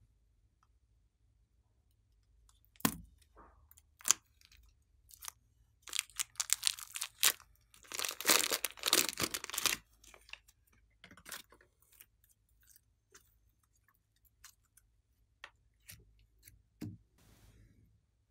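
Thin plastic piping bag crinkling and tearing as it is peeled off a lump of pink slime. Scattered sharp clicks come before and after, and the crackling is densest and loudest about eight to ten seconds in.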